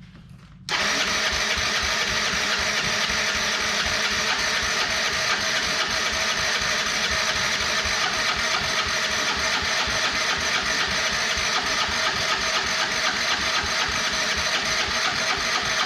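Can-Am's engine being cranked by its electric starter for about fifteen seconds, turning over steadily without firing. It starts about a second in and stops near the end. The owner wonders whether the engine is getting any spark after the machine was submerged.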